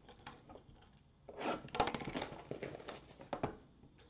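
Hands handling a trading-card box and its wrapping: a burst of rubbing and crinkling starting about a second in and lasting about two seconds, with light clicks and knocks.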